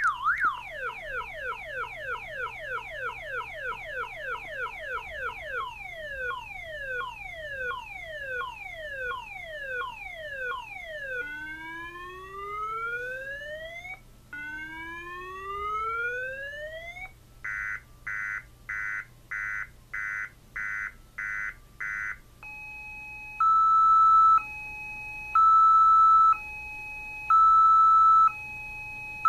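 Six-tone car alarm siren on test, stepping through its tones: quick falling chirps, then slower falling sweeps, then two long rising whoops, then about ten short beeps at roughly two a second. A high-low two-tone follows and is the loudest part, and a warble starts again near the end as the cycle repeats.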